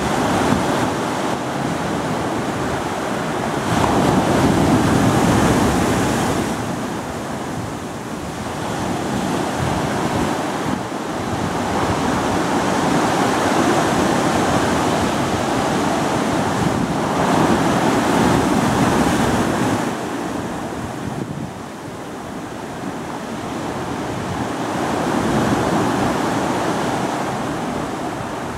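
Ocean surf breaking on rocks and washing up a sand beach: a continuous rushing wash that swells and ebbs as each wave comes in, several times over.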